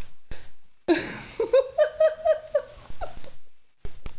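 A person laughing in a quick run of short, evenly spaced 'ha's, followed near the end by a few sharp clicks and taps.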